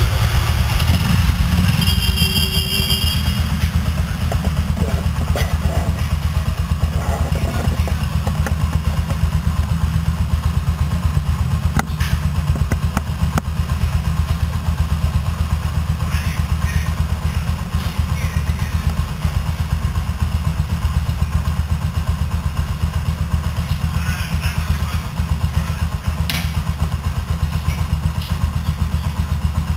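Yamaha Gladiator SS 125's single-cylinder four-stroke engine idling steadily, a low even putter.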